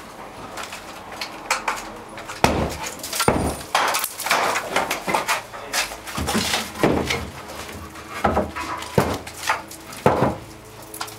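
Irregular wooden knocks and thumps as timber-and-plywood vault formwork is pushed and knocked loose from under a brick groin vault with a long board.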